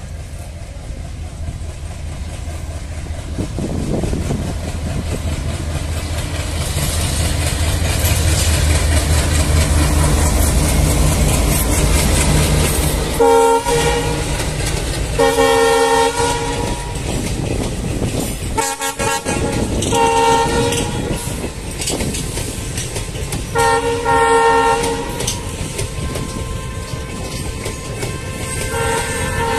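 Diesel locomotive running under power as it approaches, its deep engine rumble growing, then sounding its horn in about six blasts as it passes, with its passenger coaches rolling by on the rails.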